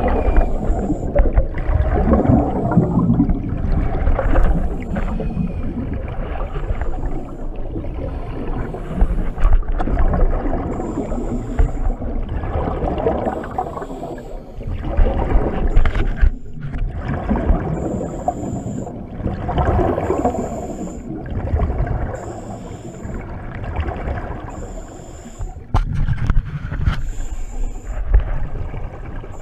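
A scuba diver breathing through a regulator, heard underwater: exhaled bubbles rush and gurgle in loud swells every few seconds.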